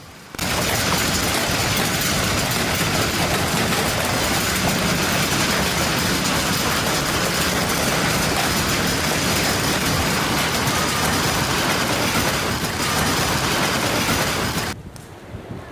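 Hailstones pelting down hard in a severe hailstorm: a dense, steady din of impacts that cuts off suddenly near the end.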